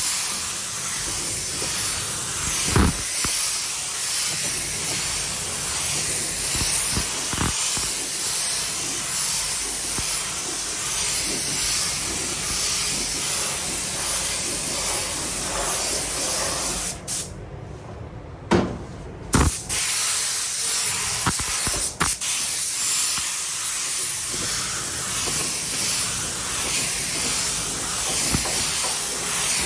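Compressed-air paint spray gun spraying with a steady hiss. It cuts out for about two seconds a little past halfway, with a few sharp clicks around the pause.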